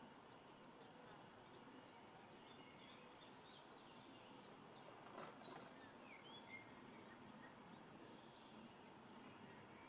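Near silence: a faint outdoor hiss, with a scattering of faint, short, high bird chirps and whistles from about three and a half to seven seconds in.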